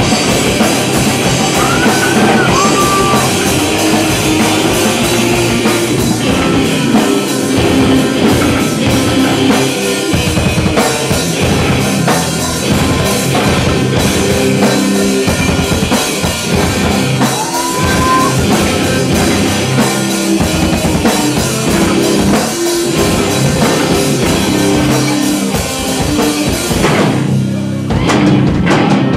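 Live rock band playing an instrumental passage: two electric guitars over bass guitar and a drum kit, loud and continuous.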